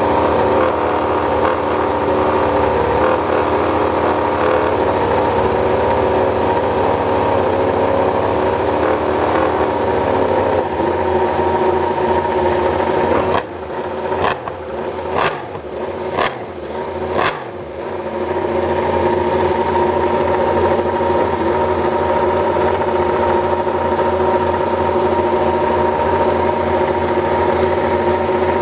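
Yamaha YZR-M1 MotoGP bike's inline-four engine running steadily. About halfway through it drops lower for a few seconds, with several sharp throttle blips, then settles back to steady running.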